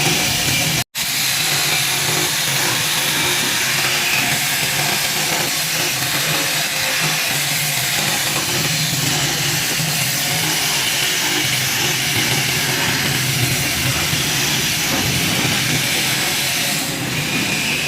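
A power tool running steadily with a continuous whirring hiss, broken by a brief sudden cut about a second in.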